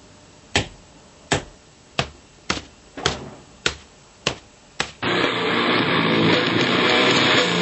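A run of about eight sharp smacks, roughly one every 0.6 seconds: blows to a man's head. About five seconds in, loud guitar music starts abruptly.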